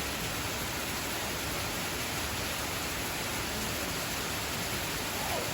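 Steady, even hiss like static or white noise, with no other sound over it.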